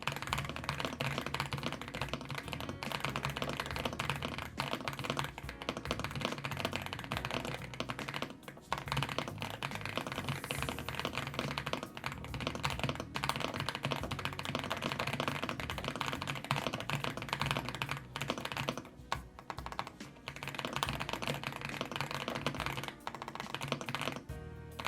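Fast, continuous typing on an Epomaker EA75 mechanical keyboard with Reaper linear switches: a dense stream of key clacks with a few short pauses, over background music.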